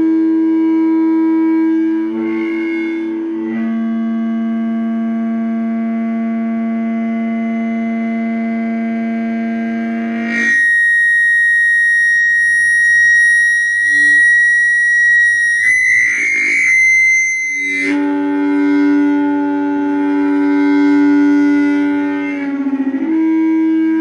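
Audio feedback howling through a stereo speaker: loud sustained tones that hold steady and then jump in pitch. A low drone shifts a couple of times, then about ten seconds in it switches to a shrill high squeal that wobbles near its end and drops back to a low drone after about seven seconds.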